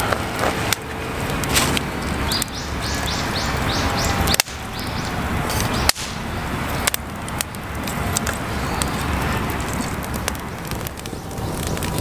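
Split kindling being handled and stacked on a sheet-metal fire stand, sharp knocks and clicks of wood over a young campfire crackling.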